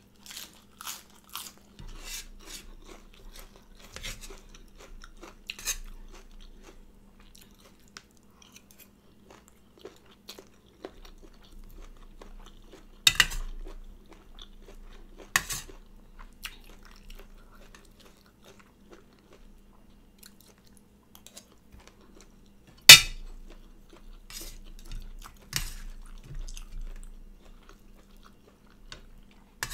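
Close-up crunching and chewing of crisp lettuce and chicken gizzards with basil. A few sharp clinks of a metal spoon and fork on the plate come through; the loudest is about two-thirds of the way in.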